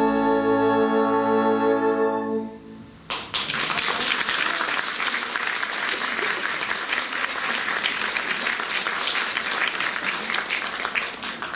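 An orchestra holds its final chord, which dies away about two and a half seconds in. About a second later the audience starts applauding.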